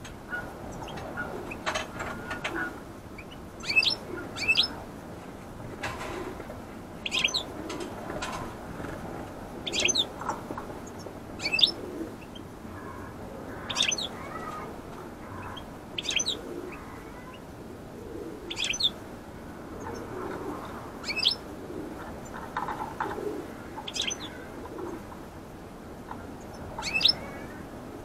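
Small aviary finches, goldfinches among them, giving short, sharp high chirps every second or two, about a dozen over the stretch, with softer low calls underneath.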